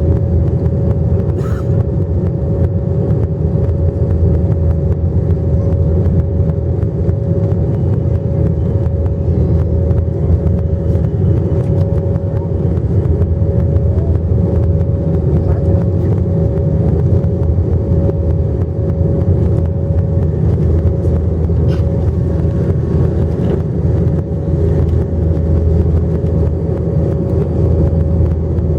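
Cabin noise inside an airliner in flight: a loud, steady drone of the jet engines and airflow, with a steady hum sitting above it.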